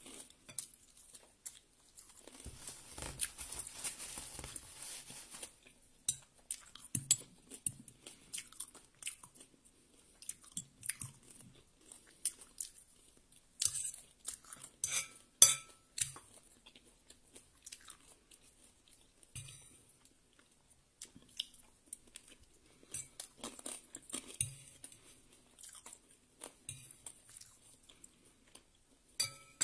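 Close-up chewing of a mouthful of fried rice, with soft crunches and wet mouth sounds. Around the middle, a few sharp clicks of a utensil against the ceramic bowl.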